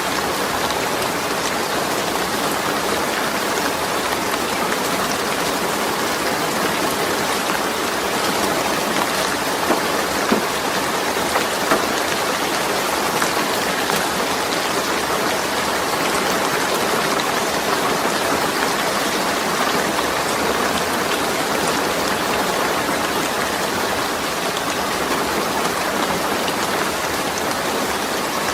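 Steady rain falling, a dense even hiss of drops with a few louder single drop hits near the middle.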